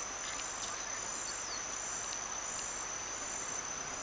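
Insects chirping in a steady, continuous high-pitched drone, with a few faint short chirps over it.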